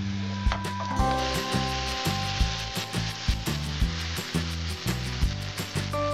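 Hot oil tempering with cumin seeds, garlic and asafoetida sizzling, hissing louder from about a second in as it is poured over the cooked dal. Background music with a steady beat plays along.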